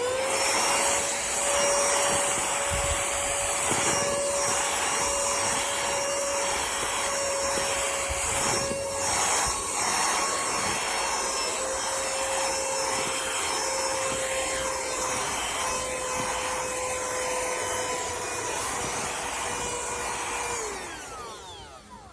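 USB mini handheld vacuum cleaner switched on, its small motor running with a steady high whine and airflow rush, with a few brief scraping noises along the way. Near the end it is switched off and the whine falls away as the motor spins down.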